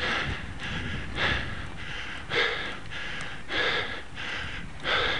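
A cyclist's hard, rhythmic breathing while climbing a steep hill, in and out about every half second, with the out-breaths louder, over a low steady rumble.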